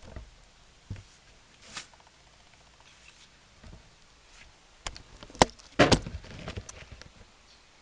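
Scattered sharp clicks and knocks of small hard objects being handled, with a quick cluster of louder clicks about five to six seconds in.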